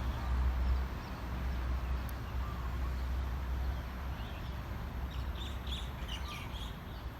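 Outdoor ambience: a steady low rumble, with several quick, high bird chirps about five seconds in.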